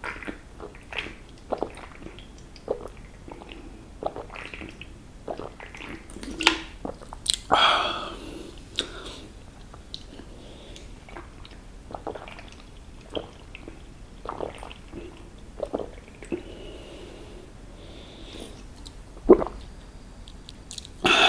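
Close-miked chewing of crispy KFC fried chicken: irregular crunchy bites and wet chews, with a few louder crunches, the loudest near the end.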